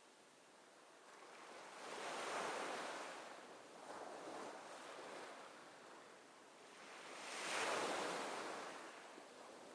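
Ocean surf: waves washing in and drawing back, a hiss that swells and fades slowly, loudest twice, about five seconds apart.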